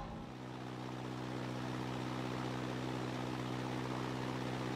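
Steady low engine drone of a propeller airship, with a hum of even overtones over a soft rushing noise, growing slightly louder over the first couple of seconds.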